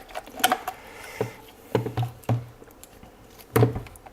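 Light clicks and knocks of hands and a small tool working on the plastic casing of a Yongnuo YN685 speedlight, undoing the screws under its flash head. About half a dozen separate taps, spaced irregularly.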